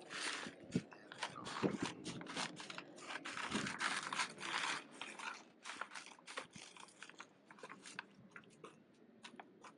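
Crinkling, crunching and scattered clicks of a feed sack and dry feed being handled, busiest about three to five seconds in and thinning out after.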